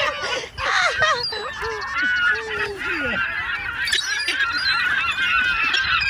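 A flock of herring gulls, many of them juveniles, calling over one another as they crowd in to be fed: many short cries bending up and down in pitch, overlapping with no pause.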